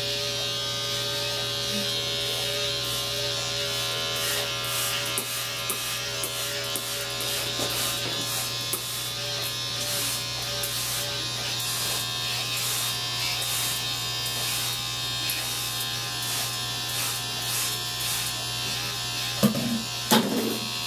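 Electric hair clippers running with a steady buzz during a haircut, with many light, quick clicks over it and a couple of louder knocks near the end.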